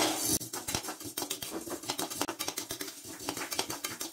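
Metal spoon stirring sago pearls as they dry-roast in an aluminium kadai: a quick run of small scrapes and clicks from the spoon and the pearls against the pan. The pearls are being roasted until they puff.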